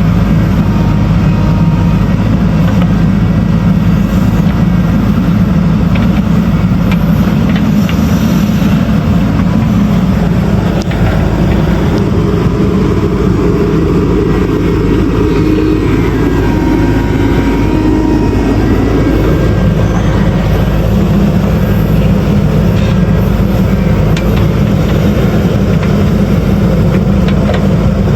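Diesel engine of a JCB backhoe loader running steadily while it works soil. About eleven seconds in, the engine note rises and holds for several seconds under load, then drops back to its earlier pitch.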